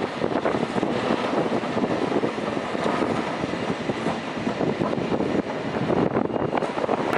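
San Francisco cable car running past close by on its street tracks, a steady rattling rumble of wheels on rail and the moving cable in the slot.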